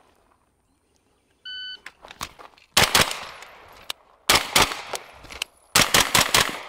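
A shot timer beeps once, about a second and a half in. After that a pistol-caliber carbine fires quick pairs of shots in separate groups, about a second and a half apart, as it is fired on several targets in a timed drill.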